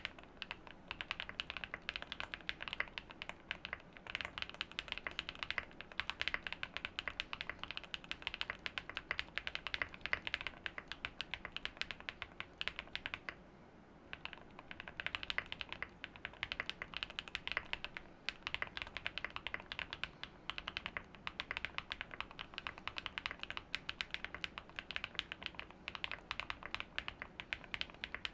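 Typing on a QK80 mechanical keyboard with Gateron CM linear switches: a fast, continuous run of keystrokes, with a brief pause a little under halfway through.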